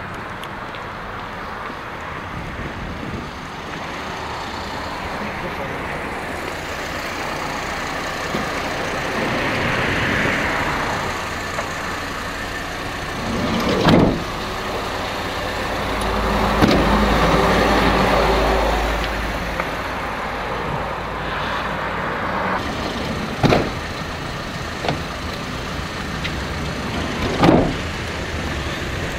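Steady road traffic noise with vehicles passing, two of them swelling louder for a few seconds. Several sharp knocks cut through it, one of them a vehicle door shutting about halfway through.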